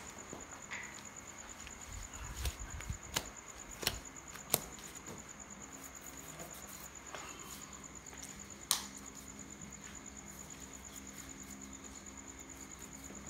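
A raw pig's head being handled and cut with a large knife on a plastic tarp: a few sharp knocks and dull thumps bunched between about two and five seconds in, and one more about two-thirds through. A cricket trills steadily and high in the background.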